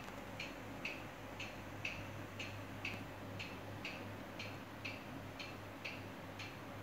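Antique Robbins & Myers electric fan's motor humming steadily, with a sharp, regular tick about twice a second.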